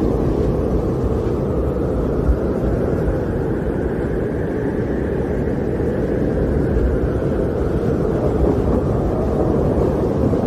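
Snowstorm wind blowing steadily, a deep rushing noise that swells a little midway.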